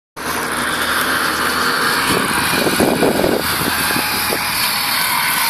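Electric motor and air propeller of a homemade RC airboat running steadily, a loud whirring hiss, with a few knocks and bumps partway through as the boat is handled.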